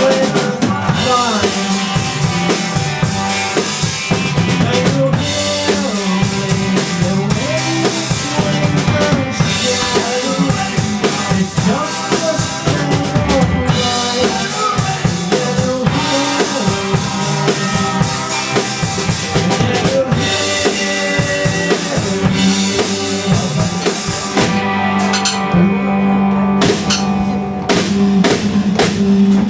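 Band playing an instrumental passage of a song, a drum kit with bass drum and snare driving a steady beat under sustained melody lines that bend in pitch. About 25 seconds in the cymbals drop out briefly before the full band comes back.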